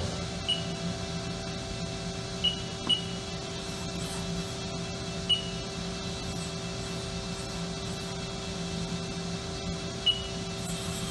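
Haas CNC lathe running with a steady hum, while its control panel gives five short high beeps as keys are pressed.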